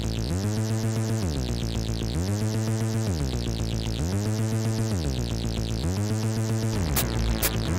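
Electronic synthesizer music: a low synth line rising and falling in pitch about every two seconds under a fast shimmering pattern, with a few sharp clicks near the end.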